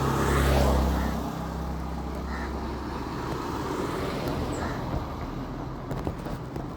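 Royal Enfield Himalayan 411's air-cooled single-cylinder engine running at a steady speed, a little louder in the first second.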